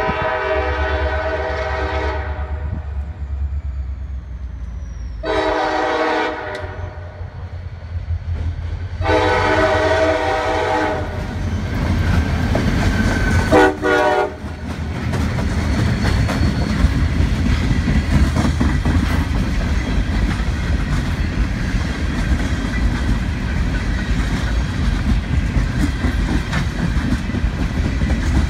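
A CSX diesel freight locomotive's air horn sounds four blasts (long, shorter, long, short) as it approaches a level crossing, over the engine's steady low rumble. The locomotive then passes close, and a long train of boxcars rolls by with steady wheel clatter over the rail joints.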